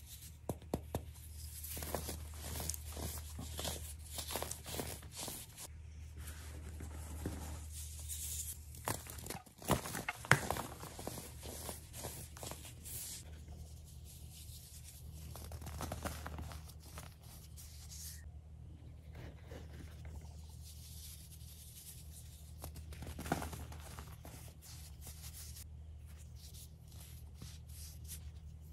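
Hands crumbling and squeezing dry, crumbly coloured powder blocks: a dense run of soft crunches and crackles with short pauses and one sharper crack about ten seconds in. A steady low hum runs underneath.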